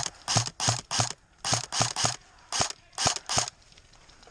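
Airsoft gun firing a string of about ten single shots in quick uneven groups, each a sharp crack, stopping about three and a half seconds in.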